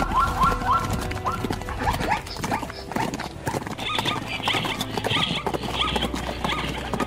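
Animal calls: a fast series of short pitched yelps, several a second, with higher chattering calls joining about four seconds in.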